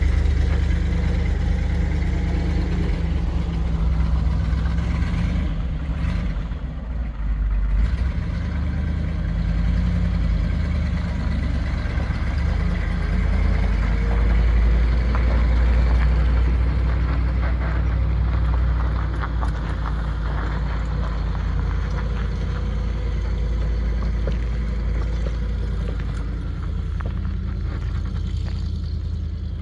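1978 Chevrolet C65 grain truck's engine running, a steady low drone.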